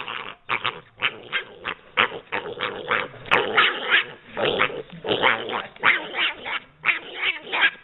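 A dog vocalising in a quick, irregular run of short growls and yips, several a second.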